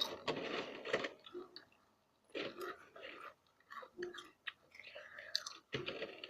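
Crunching and chewing of Ruffles potato chips eaten close to the microphone, in irregular bursts.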